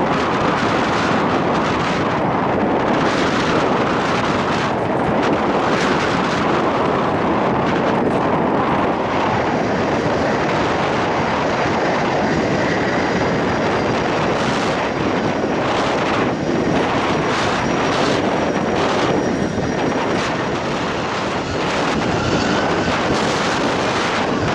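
Jet airliner engines running loud and steady as the aircraft passes, a dense rushing noise with a faint high whine. Wind gusts buffet the microphone.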